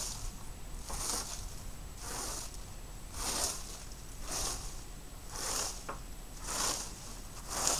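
A leaf rake dragged through fallen leaves and grass in regular strokes, about one a second, each stroke a short hiss.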